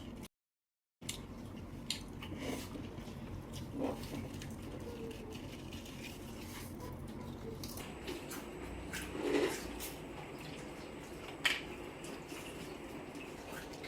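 Close-up eating sounds: wet chewing and squishing of seafood with scattered small clicks, and a few louder slurps or smacks.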